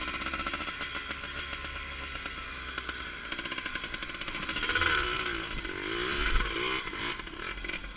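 Two-stroke dirt bike engine running at low speed while riding on a dirt trail, its revs rising and falling several times past the middle.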